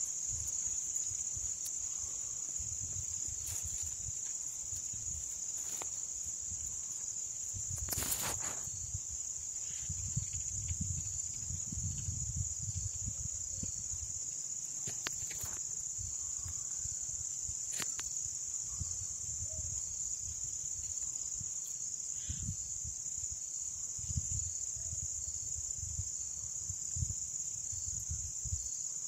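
A steady, unbroken high-pitched insect chorus. Under it runs an uneven low rumble on the microphone, and a few sharp clicks come through, the strongest about eight seconds in.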